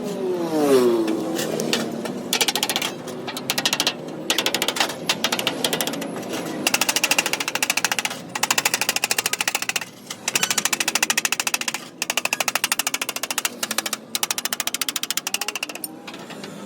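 A small machine running in bursts of rapid, even clatter that stops and starts every few seconds.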